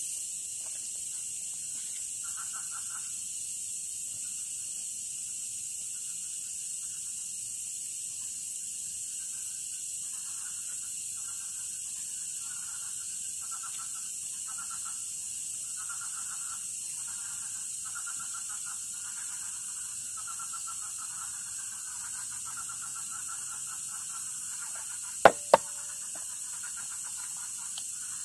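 Night chorus of insects, a steady high shrill, with frogs calling in short repeated bouts that run together into a near-continuous chorus in the second half. About three seconds before the end come two sharp clicks a moment apart, the loudest sounds.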